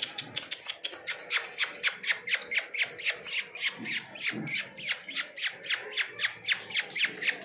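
A rapid, regular series of high, slightly falling chirps, about five a second, with a faint low yelp or whine twice around four seconds in.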